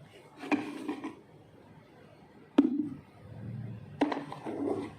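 A few sharp knocks and clicks from objects being handled, three in all, each with a short hollow ring.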